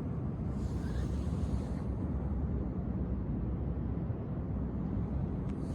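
Steady low rumble and faint hiss of background noise, with no distinct events.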